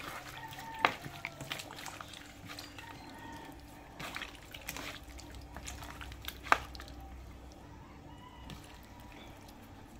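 Wet squelching and small slaps of raw fish pieces being mixed by hand with seasoning and a little water in a plastic bowl, with two sharper knocks, about a second in and about six and a half seconds in.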